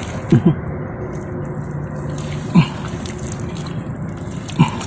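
Wet mud and water squelching and sloshing as a bare arm works inside a flooded mud crab burrow, with a few short squelches that drop in pitch, over a steady low background noise.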